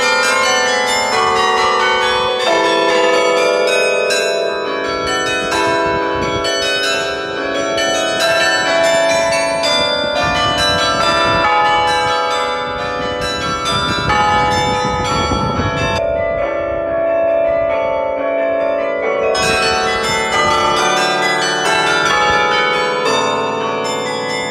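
Sather Tower's carillon being played: many tuned bronze bells struck one after another in a melodic passage, their tones overlapping and ringing on, heard close to the bells. A low rumbling noise sits underneath through the middle.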